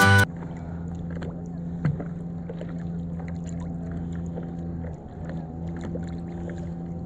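Guitar music cuts off just at the start. Then comes a steady low drone, with small splashes and water lapping against a stand-up paddle board as it moves over rippled water.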